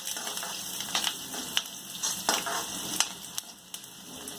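Oil sizzling in a pan as peanuts fry with browned chopped onion, with a spoon or spatula scraping and tapping against the pan half a dozen times.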